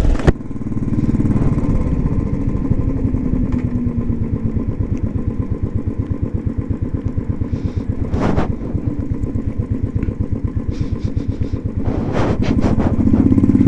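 Motorcycle engine running at low speed with an even, pulsing beat while the bike rides a rough, rocky road. There is a short rush of noise about eight seconds in and a few more near the end.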